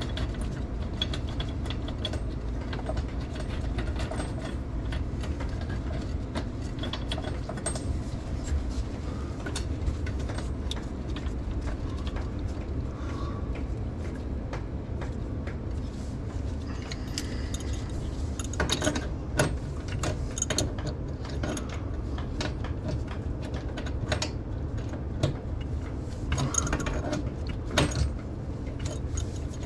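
Small clicks, taps and knocks of hands and tools working on sink drain and supply-line fittings under a cabinet, over a steady low hum. The clicks come more thickly a little past the middle and again near the end.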